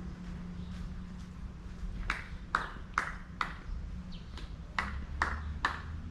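Footsteps of hard-soled shoes on a hard path: sharp clicking steps a little over two a second, four, a short pause, then three more, over a low steady rumble.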